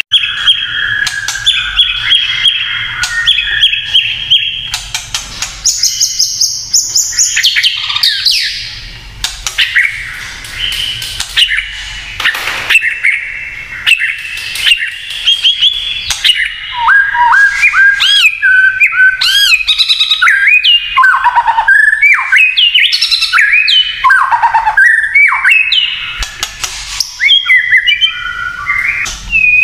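White-rumped shama singing a long, varied song of rapid whistled phrases mixed with sharp crackling clicks, the 'kretekan' chatter. A high note is held briefly about six seconds in.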